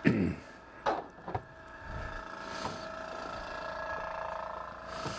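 Knocks of a turned wooden piece being picked up and handled on the tabletop: one louder knock at the start, then two lighter ones about a second in. A steady hum runs underneath.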